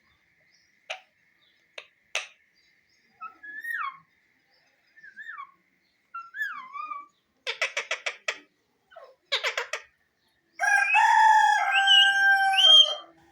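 Parrot calling: a couple of short chirps, then whistled notes that dip and rise, two quick chattering bursts, and near the end a long, loud drawn-out call that rises in pitch in its last second.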